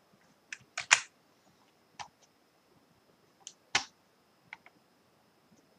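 Scattered clicks of a computer keyboard and mouse during editing: single taps and quick pairs, about nine in all, the loudest about a second in and just before four seconds.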